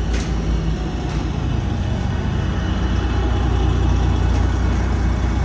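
Steady low engine rumble of the vehicle moving a wooden storage building on wheels, heard from inside the building as it rolls over gravel, with a few sharp clicks.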